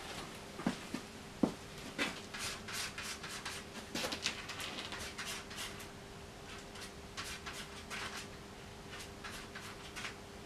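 Palette knife scraping and tapping as oil paint is mixed on a palette: an irregular string of short scrapes and clicks over a faint steady hum.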